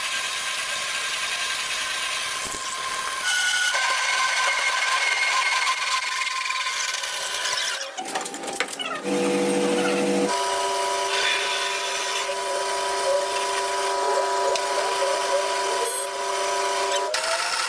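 Metalworking power tools running on a gear shaft: a steady machine whine over a grinding hiss. The pitch shifts abruptly several times.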